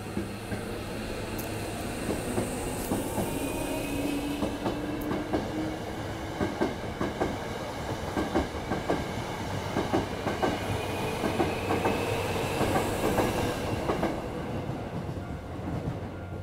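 Out-of-service Hankyu electric train running along the platform: wheels clacking over the rail joints, with a faint motor whine slowly rising in pitch. The clacking thins out near the end as the train clears the station.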